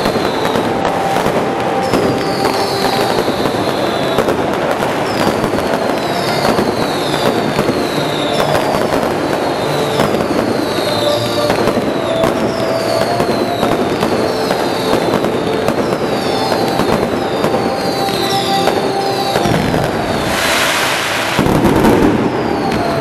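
Fireworks display: a dense, continuous crackle of sparking fireworks, with high falling whistles recurring every second or so. Near the end comes a louder rushing burst.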